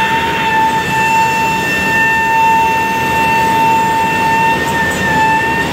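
CNC flatbed cutting table's router spindle milling ABS sheet: a steady high whine with fainter overtones above it, over a steady rushing noise.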